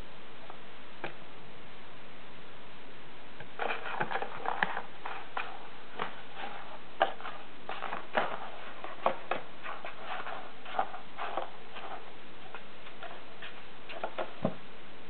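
A kitten pawing and scrabbling at an empty cardboard tissue box, digging for treats inside: irregular scratching, rustling and light tapping on the cardboard. It is sparse at first and turns busy about three and a half seconds in.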